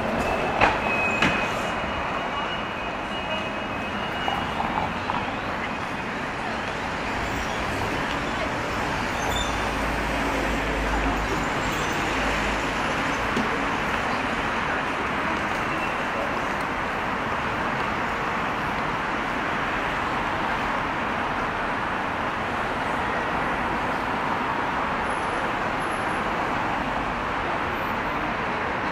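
Busy city street ambience: a steady wash of traffic and crowd noise, with a few sharp clicks about a second in and a low rumble near the middle.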